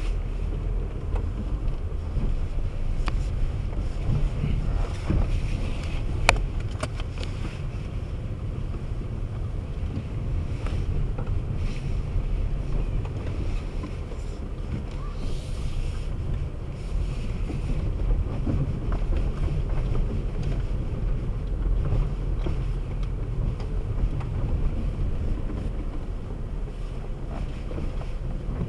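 Steady low rumble of a car driving slowly over rough, broken pavement, heard inside the cabin: engine and tyre noise. There is one sharp click about six seconds in.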